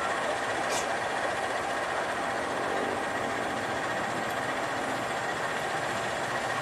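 Diesel locomotive engine running steadily as the locomotive slowly pulls a load along the track.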